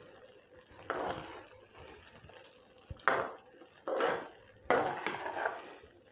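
Metal spoon stirring and scraping thick, creamy risotto in a red glazed ceramic pot, in four separate strokes: about a second in, at three seconds, at four, and just before five.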